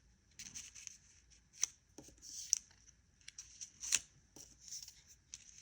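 Small cut cardstock pieces being handled and set down on a work surface: light paper rustling with scattered soft taps, the sharpest about four seconds in.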